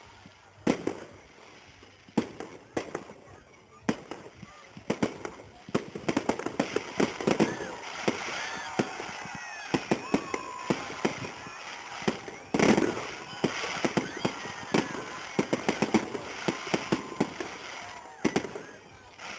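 Fireworks display: aerial shells bursting in a rapid string of sharp bangs and crackles, thickening into a dense barrage about a third of the way in, with the loudest burst about two-thirds through.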